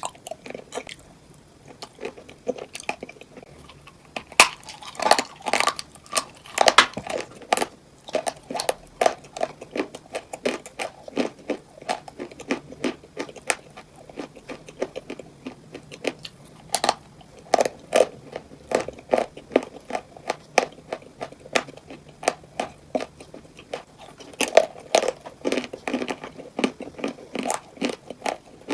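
A person biting into and chewing cupcakes filled with crunchy items: a rapid run of crisp crunches, with louder clusters of bites about four to seven seconds in, around seventeen seconds, and again near the end.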